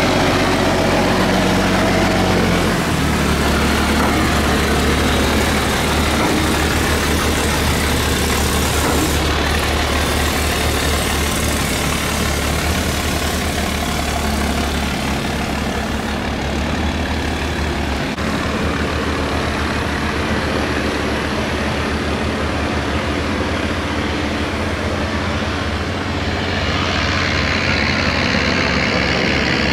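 Heavy boat engine running steadily with a low throb, its note shifting about three seconds in, under a constant rushing noise.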